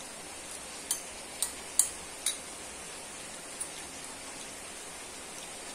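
Metal spoon and fork clinking against a ceramic bowl while scooping noodles: four sharp clinks in quick succession about a second in, then a fainter one, over a steady background hiss.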